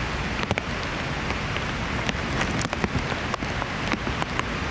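Fairly heavy rain falling: a steady hiss with many irregular sharp taps of drops landing close by.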